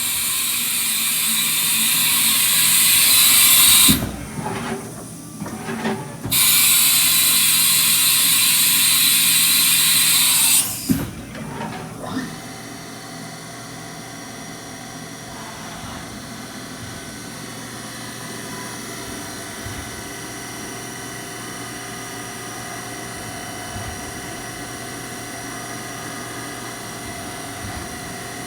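Haas VF-4 vertical machining centre running: two long, loud hisses with a few knocks between them, then a steady, quieter machine hum with several constant tones.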